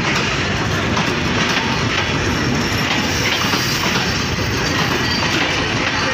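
Bangladesh Railway intercity passenger coaches rolling past at the platform, a steady rumble of the moving train with repeated clacks of the wheels over the rail joints.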